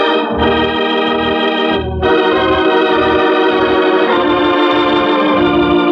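Organ playing the opening theme music: held, full chords over a pulsing bass, with a short break and change of chord about two seconds in.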